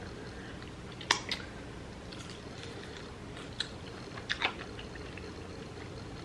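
Close-up eating sounds from a seafood boil: a few sharp, clicky bites and chews, the loudest about a second in and another pair around four and a half seconds in, over a steady low background hum.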